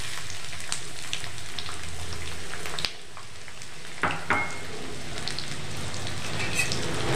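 Freshly added chopped onions sizzling in hot oil and cumin in a kadai: a steady frying hiss, briefly dipping about three seconds in, with a few light clicks about four seconds in.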